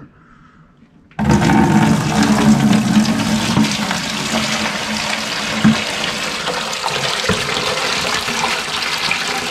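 Water poured from a cooler of live shrimp over its corner into a plastic bucket. It starts suddenly about a second in and runs as a steady splashing gush.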